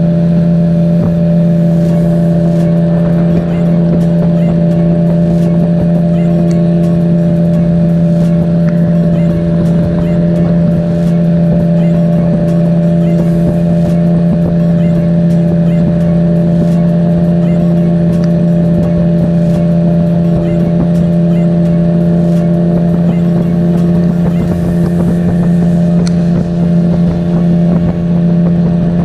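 Small boat's outboard engine running at a steady, constant speed, a loud unchanging hum.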